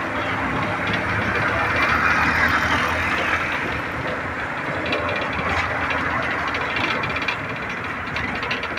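Steady road and engine noise of a moving vehicle, heard from inside it, with light rattles and clicks in the second half.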